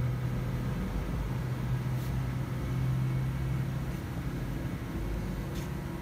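Steady low machine hum with a rumble underneath, strongest in the first half and easing a little after about three and a half seconds, with two faint clicks.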